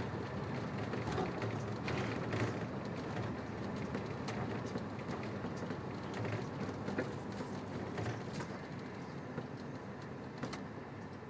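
RV running along at low speed: steady engine and road rumble with frequent light rattles and clinks, easing off slightly near the end.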